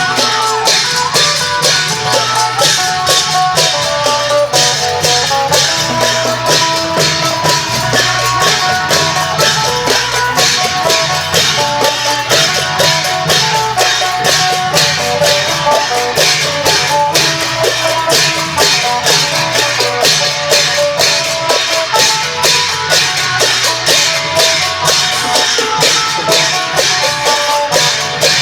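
Isan phin, a plucked lute, playing a melody over klong yao long drums and percussion strikes that keep a steady, fast beat: Isan long-drum procession music.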